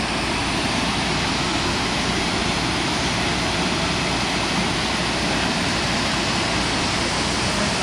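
Steady rushing roar of water pouring over a dam spillway into the river, constant throughout.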